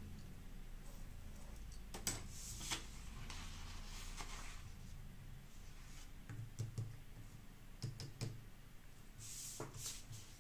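Paper pattern sheets being handled and slid over a cutting mat: soft rustles with a few light taps and clicks scattered through, over a low steady hum.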